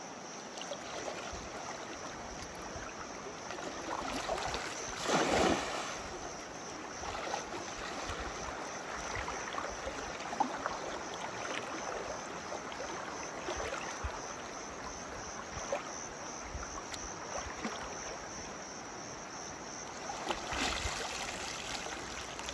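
A cast net splashes into a shallow river about five seconds in, over the steady flow of the water. Near the end there is more splashing and sloshing as the wet net is hauled back out.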